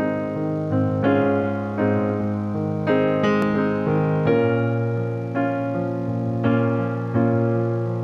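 Background music: a keyboard, piano-like, playing slow chords. A new chord is struck about once a second and each fades before the next.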